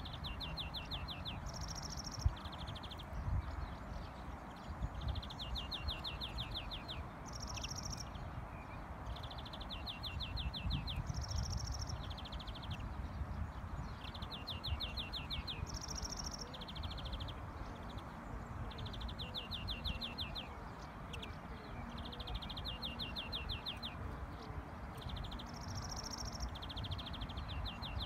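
European greenfinch singing: repeated phrases of fast, rattling trills with a short high note between them, coming round about every four seconds. A low background rumble runs under the song.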